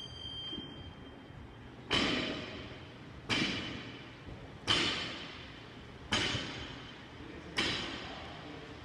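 Barbell with bumper plates touching down on a rubber gym floor during touch-and-go deadlift reps. Five thuds come about a second and a half apart, the first about two seconds in, each ringing briefly.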